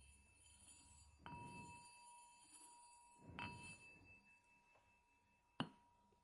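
A small metal bell struck three times, quietly. Each strike renews a steady high ringing tone that hangs on between strikes; the third strike, near the end, is the sharpest and loudest.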